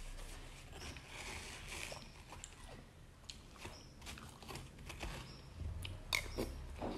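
A person biting and chewing juicy watermelon close to the microphone: irregular small wet clicks and smacks, a little louder near the end.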